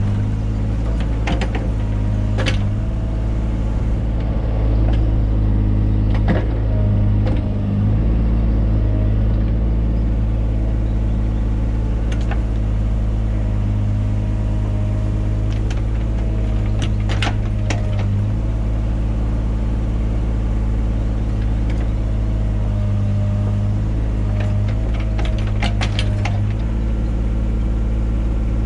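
Mini excavator's engine running steadily at working speed, with a faint wavering whine and scattered sharp clicks and knocks as it digs.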